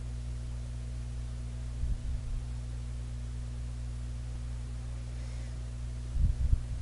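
Steady electrical mains hum, with a few soft low thumps about two seconds in and again near the end.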